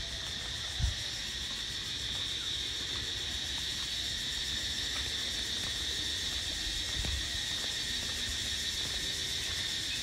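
Steady high-pitched drone of an outdoor insect chorus, with one low thump about a second in.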